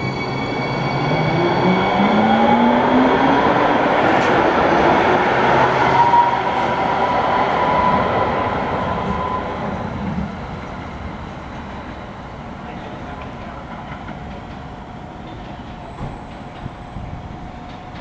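Two-car Kinki Sharyo light rail train accelerating away from the station: the traction motors whine, rising in pitch, over the rumble of the wheels on the rails. The sound is loudest in the first half and fades after about ten seconds as the train draws off.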